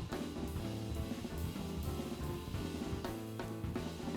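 Background music with a drum kit keeping a steady beat under bass and other pitched instruments.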